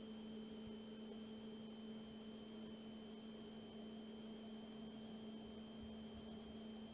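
Faint, steady electrical hum with a thin high-pitched whine over a light hiss.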